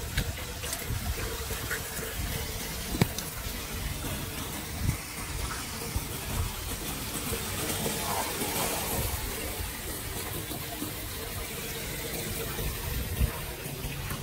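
Floodwater rushing and pouring through a street storm-drain grate, a steady gushing of water, with a few brief sharp knocks along the way.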